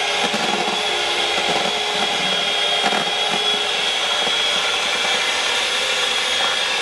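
Electric hand mixer running steadily with a high whine, its beaters whipping a white, foamy mixture in a plastic container.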